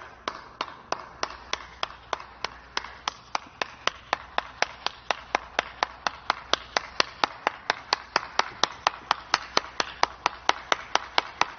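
One person clapping hands alone, at an even pace of about four claps a second.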